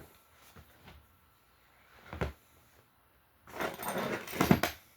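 Metal scope-mount parts being handled. There is a single knock about two seconds in, then about a second of clattering and rattling near the end.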